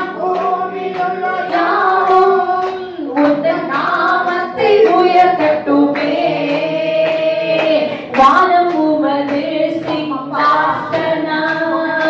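A woman sings a Tamil Christian devotional song into a handheld microphone through the hall's PA, with other voices joining in and hands clapping along in time.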